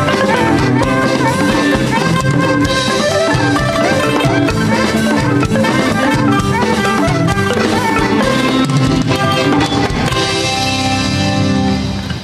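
Lively instrumental band music with a steady drum and percussion beat.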